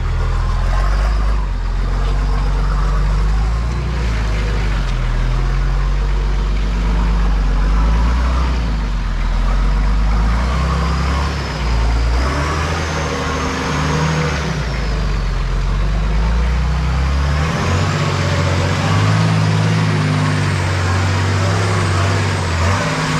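A 4x4's engine working hard as it climbs a steep muddy hill, revs rising and falling in steps, with a high whine that rises and falls in pitch through the second half.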